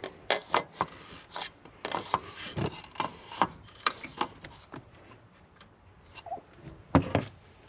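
Hand tools working on the truck's oil drain plug: irregular metal clicks and scraping, a few a second, thinning out about five seconds in, then a single louder knock near the end.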